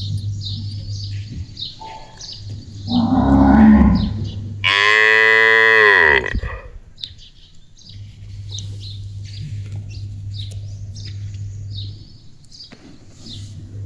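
A cow mooing: a low call about three seconds in, then a longer, higher moo that drops in pitch as it ends.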